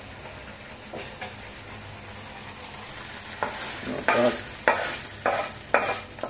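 Freshly fried soy asparagus pushed by a gloved hand out of a hot, oily frying pan into a large plastic bowl: a faint sizzle, then, a little past halfway, a run of about five quick scraping sweeps roughly every half second.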